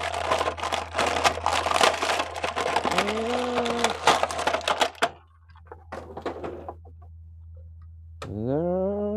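Plastic action-figure packaging crinkling and clicking as it is handled and opened, dense for about five seconds and then only a few faint clicks. A short hummed voice sounds about three seconds in, and a rising vocal sound near the end. A steady low hum runs underneath.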